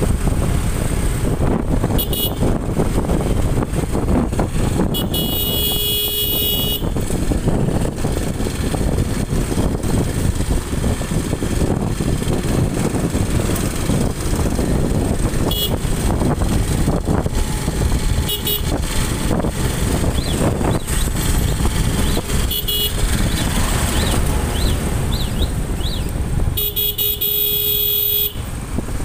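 Wind rush and road noise from a moving motorcycle, with a horn sounding for about two seconds twice, about five seconds in and near the end, and a few short toots in between.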